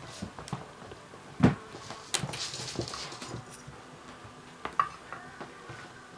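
Kittens at play knocking a wicker basket about: scattered light knocks and scrapes, with one loud thump about a second and a half in and a rustling scrape just after.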